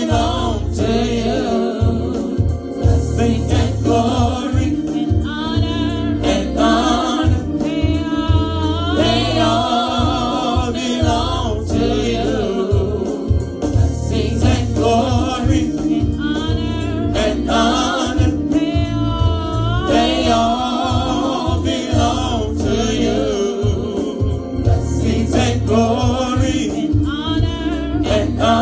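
Gospel worship singing: a small group of vocalists singing together through microphones, with melodic lines and vibrato, over a steady bass accompaniment.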